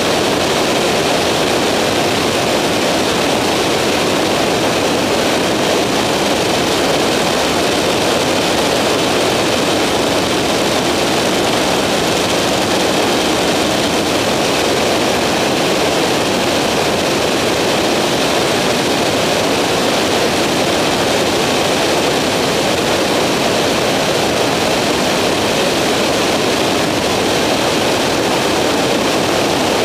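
Skyranger microlight in flight, its engine, propeller and airflow making a loud, steady rushing drone that does not change in pitch or level.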